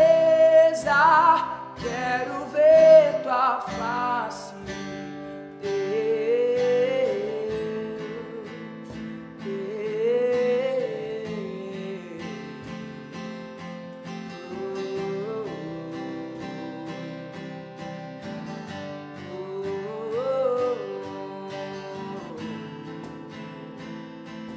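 Acoustic worship song: male voice singing over a strummed steel-string acoustic guitar and cajón. For about the first five seconds the voice holds a note with vibrato over the full band, then the music drops to softer guitar with quieter sung phrases.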